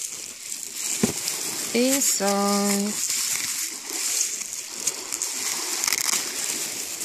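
Plastic bubble wrap crinkling and rustling as it is handled and pulled open by hand, with a sharp click about a second in.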